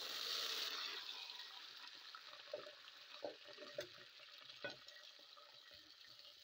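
Fresh green peas poured into hot oil and fried onions in a metal pot set off a loud sizzle that fades over a couple of seconds to a steady frying hiss. A wooden spoon stirring them knocks against the pot four or five times in the middle.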